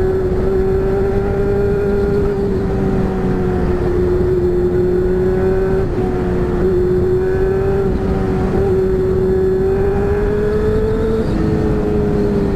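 Honda Hornet's inline-four engine running through an aftermarket exhaust at fairly steady revs, its pitch holding level with slight rises and dips.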